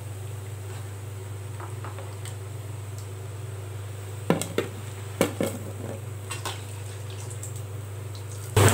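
Steady low hum with a few sharp metal clinks about four to five and a half seconds in: a steel ladle knocking against the frying pan and plate while fried bondas are lifted out of the oil.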